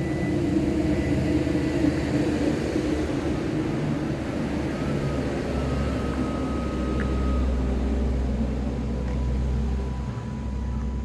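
Motor vehicle engine noise, a low drone that strengthens about halfway through and eases near the end.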